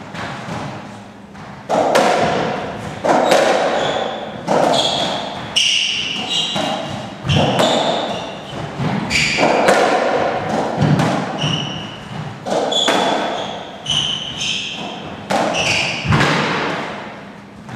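Racketball rally on a squash court: the ball struck by rackets and thudding off the walls about once a second, each hit echoing, with short high squeaks of shoes on the wooden floor. The rally starts about two seconds in and ends near the end.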